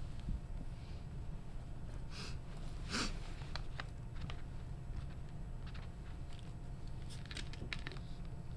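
Quiet room tone with a steady low hum, broken by scattered small clicks and a couple of brief rustles from people handling papers and pens at desks.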